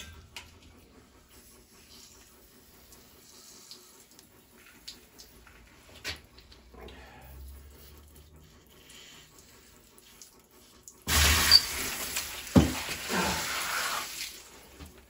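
Faint handling of a boiler expansion tank being unscrewed, then, about eleven seconds in, a sudden loud rush of water with a few knocks as the tank comes off and its water pours out. The tank is full of water because its diaphragm has failed.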